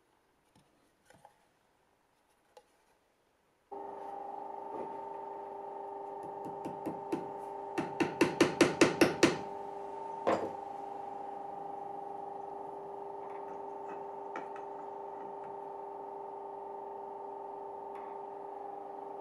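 A run of sharp knocks on wood, quickening and getting louder for a few seconds, then one more, as the sconce is fixed to a wooden barn door post. Under them a steady humming drone with two held tones starts a few seconds in.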